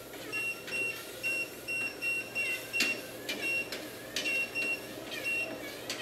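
Portable walking-pad treadmill beeping: about a dozen short, high beeps, roughly two a second, as buttons on its remote are pressed. Footsteps on the moving belt sound underneath, and the beeps stop shortly before the end.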